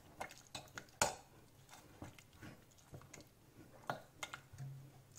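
Metal ladle scraping and knocking against the inside of a metal pressure cooker while mashing soft-cooked horse gram dal. The clinks are faint and irregular, with the sharpest about a second in and near four seconds.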